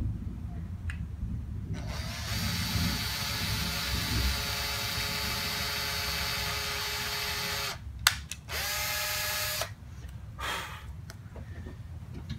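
Cordless drill with a 5/64-inch bit boring screw pilot holes through a Stratocaster pickguard into the guitar body. One steady run of about six seconds, a sharp click, then a shorter second burst that spins up in pitch.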